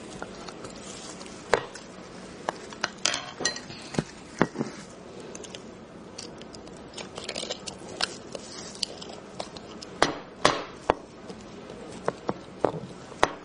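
A knife tapping, clicking and scraping against a roasted beef marrow bone as the marrow is worked loose, with scattered sharp clicks, the loudest about ten seconds in.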